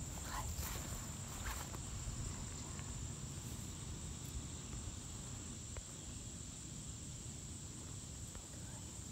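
Insects singing as one steady high-pitched tone, over a low background rumble. There are a couple of faint short chirps in the first two seconds.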